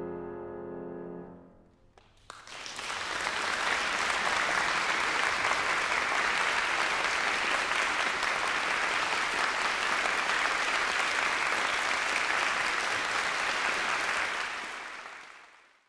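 The last chord of a Steinway grand piano rings and dies away, then after a brief silence an audience breaks into steady applause that fades out near the end.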